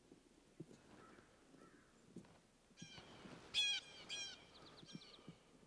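Wild turkeys calling in the middle of the stretch: a few short, loud calls, the loudest about three and a half and four seconds in, followed by a quick run of ticks. A few soft low thumps come and go under them.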